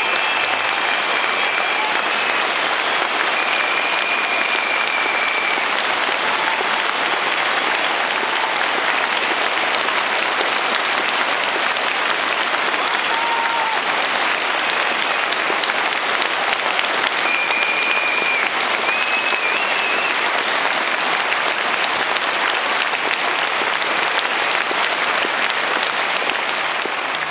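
Sustained applause from a large audience, holding at a steady level.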